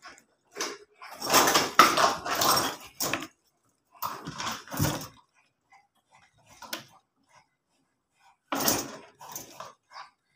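Wire cage and plastic litter tray rattling and clattering as a cat thrashes against them during a seizure. It comes in three bouts, the longest about two seconds, with a few single knocks between.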